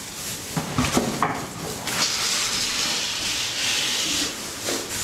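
Dry straw being rustled in a box: a few knocks and crackles early, then a steady hiss from about two seconds in that stops before the end.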